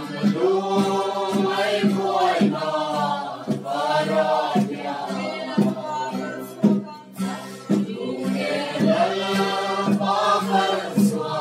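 A group of men and women singing a Mizo hymn together in long held notes, accompanied by an acoustic guitar and a steady drum beat.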